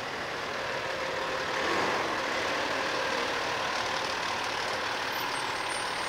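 Heavy trucks (a tow truck and a service truck) running at low speed as they move slowly past; a steady engine and road noise with a faint steady whine.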